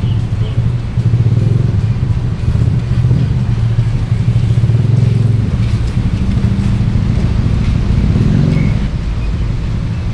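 Vehicle engine running at a steady low drone, which eases off about nine seconds in.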